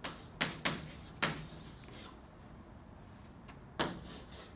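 Chalk tapping and scratching on a chalkboard as words are written: four sharp taps in the first second and a half, then a single tap near the end.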